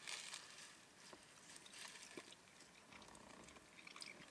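Near silence with faint eating sounds: a brief soft rustle at the start, then scattered small clicks and taps of plastic forks in foil takeout pans as pasta is eaten.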